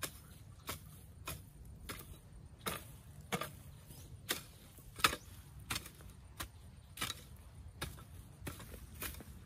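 A regular series of sharp knocks on the ground, about three every two seconds, over a faint low rumble.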